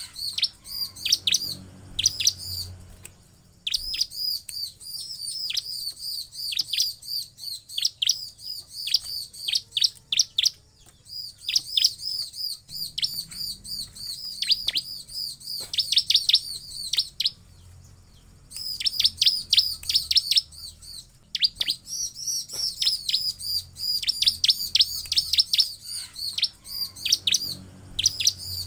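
Bar-winged prinia (ciblek) singing: rapid series of high-pitched chirping notes in bouts of a few seconds, with brief pauses between bouts.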